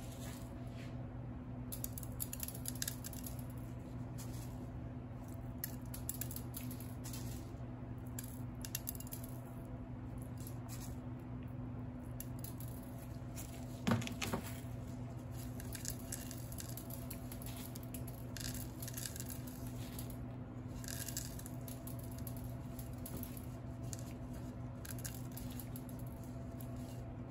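Faint scraping and tapping of cake-decorating tools working buttercream, over a steady electrical hum, with one sharp knock about 14 seconds in.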